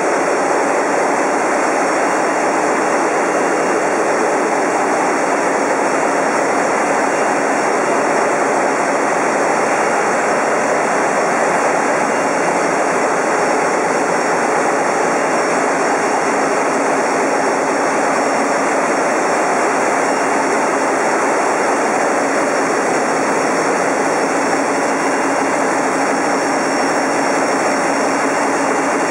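Loud, steady machinery noise of a ship's engine room, with the ferry's diesel engines running at constant speed.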